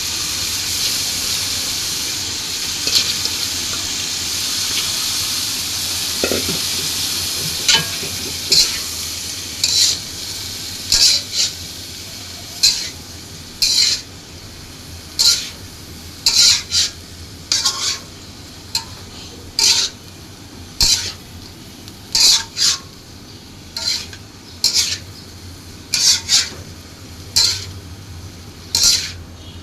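Kochur loti (taro stolons) sizzling in a frying pan while a spatula scrapes and stirs in short strokes about once a second. The sizzle is strong at first and dies down after about ten seconds, leaving mostly the scraping strokes.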